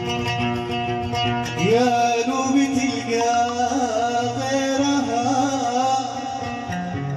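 Middle Eastern music: a plucked string instrument playing, joined about a second and a half in by a voice singing a long, wavering, ornamented line without clear words.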